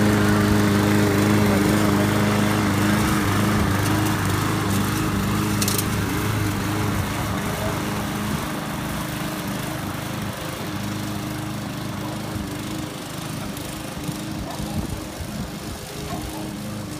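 Walk-behind lawn mower running steadily as it cuts grass, growing gradually fainter as it is pushed away.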